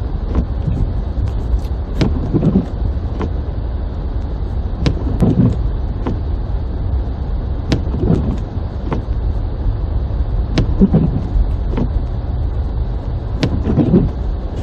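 Car running through snow, heard from inside the cabin: a steady low engine and road rumble, with a swelling sound that comes back about every three seconds and scattered sharp ticks.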